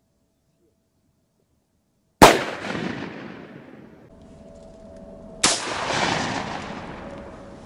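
Two shotgun shots about three seconds apart, the first one louder, each followed by a long echo that dies away slowly.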